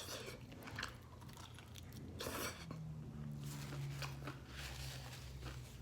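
Close-miked chewing of food, with irregular crunchy bites, one louder crunch about two seconds in.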